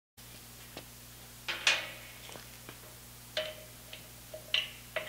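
Light metallic clinks and taps, about ten at irregular intervals, a few with a short ring, as metal fittings and a hose are handled on an air compressor pump, over a steady low hum.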